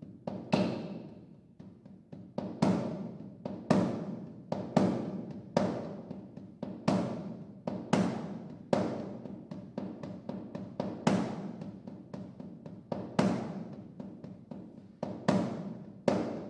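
Piano and percussion playing a contemporary piece: struck drum and piano strokes, the strongest about once a second, each ringing away, with lighter strokes in between.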